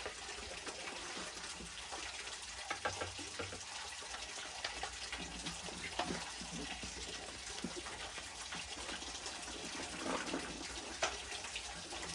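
Steady rush of running water, with a few light clicks and knocks of handling.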